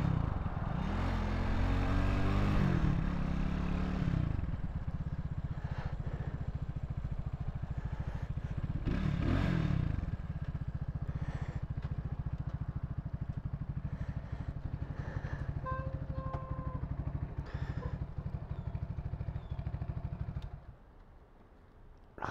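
Vitacci XMT 250 motorcycle engine slowing with falling and rising revs, a short rev about nine seconds in, then idling steadily before it is switched off just before the end.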